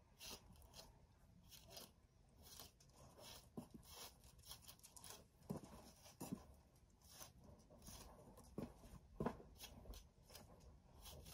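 Faint, scattered scratchy strokes of a brush being pulled through a horse's tail, a few of them louder.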